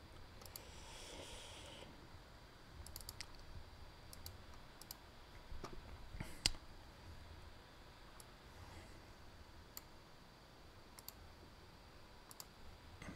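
Faint computer mouse clicks: about a dozen scattered single clicks at irregular intervals, the loudest about six and a half seconds in, over low room hiss.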